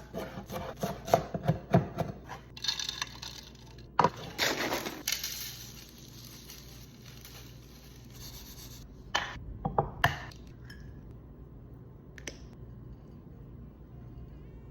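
Kitchen prep sounds: utensils and dishes clinking and scraping in a quick run of light taps. A sharp knock comes about four seconds in, followed by a scraping rustle, then a few separate knocks with quieter stretches between.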